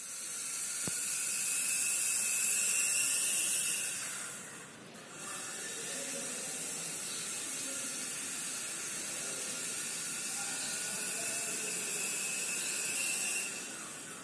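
Small infrared remote-control toy helicopter (RFD009) running: the whoosh of its spinning rotors over a thin, high motor whine. About five seconds in it dips briefly and spins back up, and it winds down near the end.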